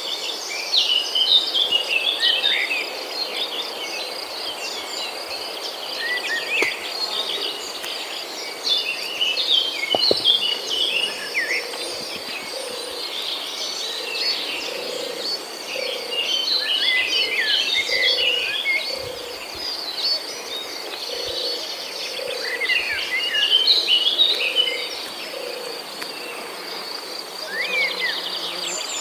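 Outdoor ambience of a steady, high insect trill, with many short bird chirps and whistles over it. A low note repeats about once a second through the second half.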